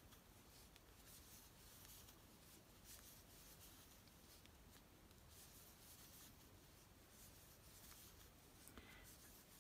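Very faint, soft scratchy rustling in short irregular strokes: a metal crochet hook drawing yarn through stitches.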